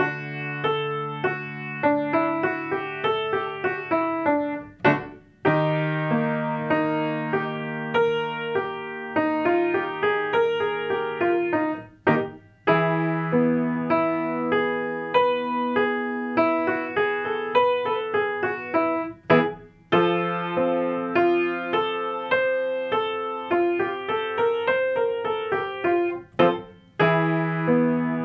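Piano playing a vocal-exercise accompaniment: a held chord under a short run of notes that climbs and falls back. The pattern repeats with a brief break every six to seven seconds, each repetition starting a little higher.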